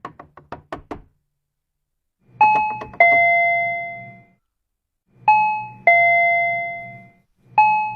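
A doorbell's two-tone chime rung over and over: a higher note then a lower one, each left to die away, sounding twice and starting again near the end. Before the chimes come a quick run of about seven sharp taps.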